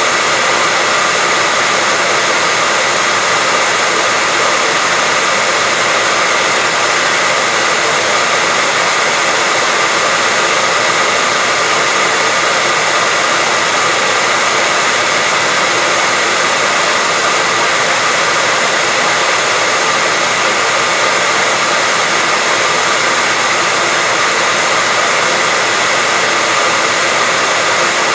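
Hair dryer running steadily: an unbroken rush of blown air with a faint steady whine in it, never changing.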